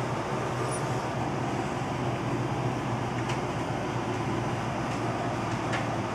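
Steady rushing noise of a derecho's wind and heavy rain, heard from inside through a window, with a couple of faint ticks of drops striking the glass.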